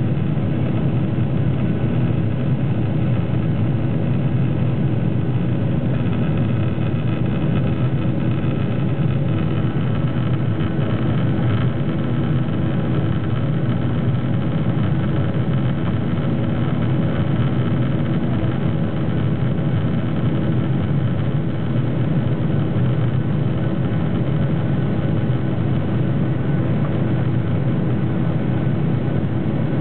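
Steady cabin noise inside a Boeing 737-800 in flight, heard from a seat near the engine: the even drone of its CFM56-7B turbofan engines mixed with the rush of air along the fuselage, with a few steady humming tones in it.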